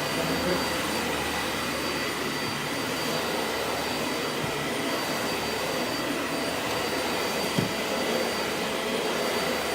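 Dyson Light Ball Animal upright vacuum cleaner running steadily on carpet, its brush bar spinning, a constant rushing hum with a high motor whine. One short knock about three-quarters of the way through.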